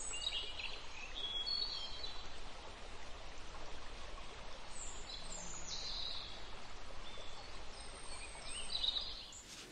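Outdoor nature ambience: a steady rushing noise with short, high bird chirps scattered through it, clustered near the start, about five seconds in, and near the end.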